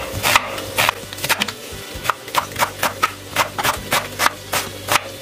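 Chef's knife chopping a red onion on a wooden cutting board: a steady run of knocks as the blade hits the board, three or four a second.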